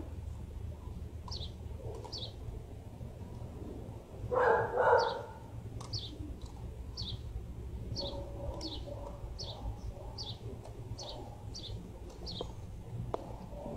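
A small bird chirping over and over, short high chirps every half second to a second, over a steady low hum. About four and a half seconds in, a dog gives a short double bark.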